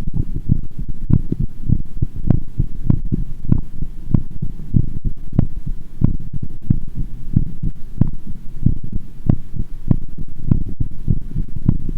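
A woman's heartbeat heard through a microphone pressed against the skin: fast, a little under two thumps a second, over a steady low rumble. The heart is racing after a night of dancing and drinking.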